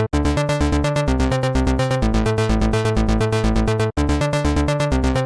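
Electronic dance music with a fast, steady beat and synthesizer notes. It cuts out for a split second twice, just after the start and about four seconds in.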